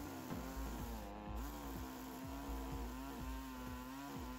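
Chainsaw cutting through a log, its motor running at a steady pitch that dips slightly now and then as the chain bites into the wood.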